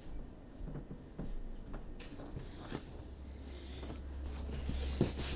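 Scattered knocks and rustles as a person sits back down at a desk chair, with a low hum building over the last couple of seconds and a few sharp clicks near the end.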